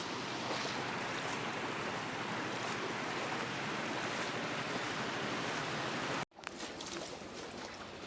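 Steady rush of floodwater from the overflowing Citarum River. It cuts off abruptly a little over six seconds in, and a quieter, thinner water sound follows.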